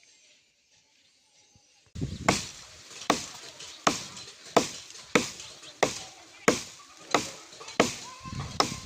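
Repeated heavy strikes, about three every two seconds, starting about two seconds in after near silence.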